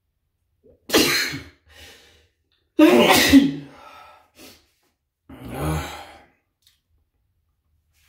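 A man sneezing hard twice, about two seconds apart, then a softer third outburst; the sneezes are set off by tickling the inside of his nostril with a nail.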